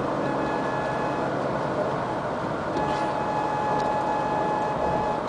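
Steady road and engine noise inside the cabin of a 2010 Ford Explorer, with a thin, steady whining tone that comes and goes over it. A higher tone sounds briefly in the first second, then a lower one from about three seconds in to near the end. This is the unexplained noise the owner hears only after hours of driving; the dealer took it for a speed alarm, but the owner says it is not one.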